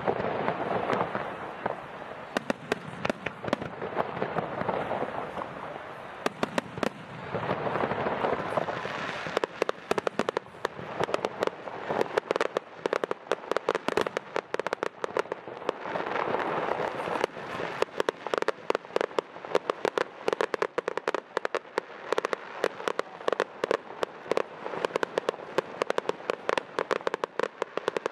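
Fireworks display: a continuous run of sharp bangs and crackling shells, growing into a dense rapid crackle about nine seconds in.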